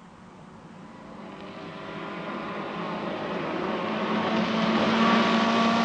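Rally car approaching flat out, its engine held at steady revs and growing steadily louder as it nears.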